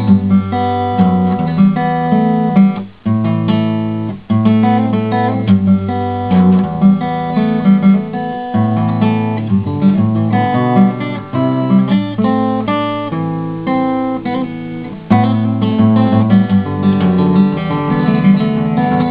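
Background music: acoustic guitar playing a plucked and strummed tune.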